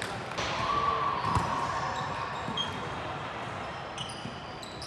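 Indoor volleyball gym ambience echoing in a large hall: sneakers squeaking on the hardwood court, a ball thud about a second and a half in, and distant voices from players on the courts.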